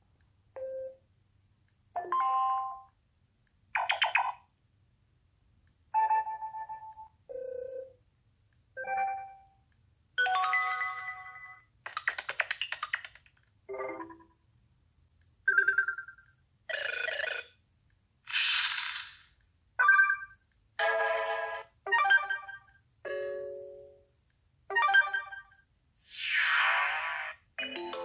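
Sony Xperia Z notification sounds played one after another with short silent gaps: about twenty different chimes, beeps and short jingles, each lasting under a second to about a second and a half, a few of them whooshing sweeps instead of tones.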